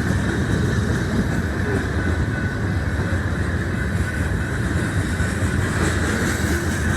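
BNSF manifest freight train rolling past, a steady rumble of wheels on the rails.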